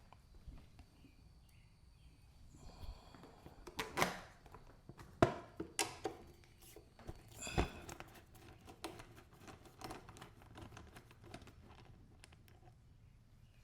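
Scattered knocks and clicks of hand tools and plastic body panels being handled while unbolting a dirt bike's rear plastics. There are a few sharper knocks clustered in the middle, the loudest a little past halfway.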